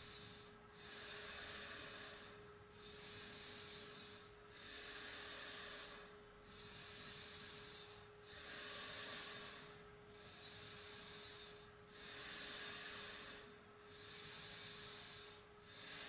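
A man breathing deeply and audibly in a slow, even rhythm during yoga abdominal breathing practice. Each inhale and exhale lasts about two seconds. A faint steady hum lies underneath.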